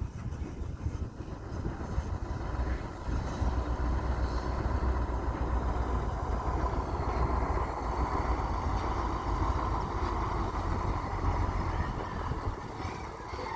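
Heavy construction vehicle engine running with a steady low rumble. A higher whine grows louder around the middle and eases off toward the end.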